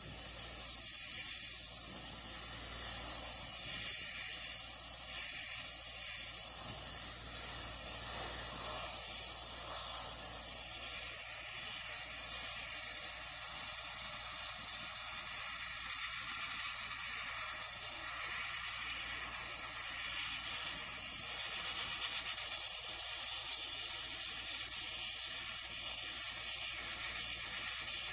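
High-pressure blast nozzle hissing steadily as it is played over the steel side of a dump truck body, stripping rust and old paint.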